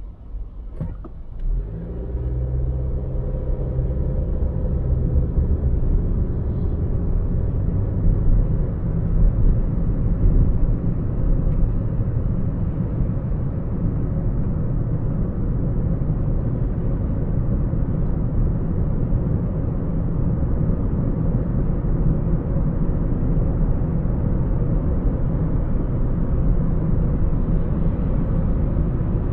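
Car driving: the engine note comes in and the level rises about two seconds in as the car gets under way, then a steady low road-and-engine rumble.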